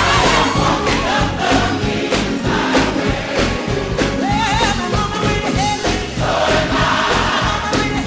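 Gospel music: a choir singing over a steady beat.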